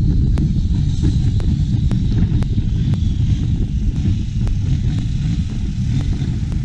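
Turbocharged diesel engine of a racing long-tail boat running flat out, a loud steady drone, mixed with rushing wind and water as the boat planes at speed.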